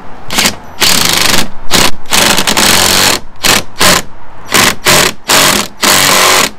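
Cordless driver run in about ten short trigger bursts, the longest about a second, tightening a small bolt at the top corner of a car's front grille.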